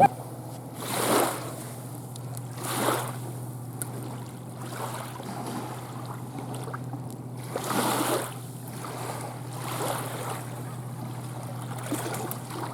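A motorboat engine drones steadily in the distance, with a few brief swells of rushing noise over it.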